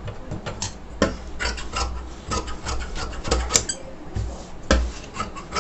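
A hand rubbing and smoothing a piece of cotton fabric flat on a tabletop: a run of short, irregular rustles and light knocks.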